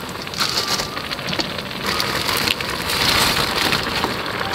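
Broth in a wide pot boiling hard: a dense bubbling crackle that gets louder about two to three seconds in.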